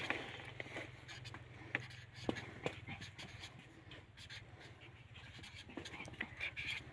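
Felt-tip marker writing numbers on paper: faint, short scratching strokes and a few light taps, over a steady low hum.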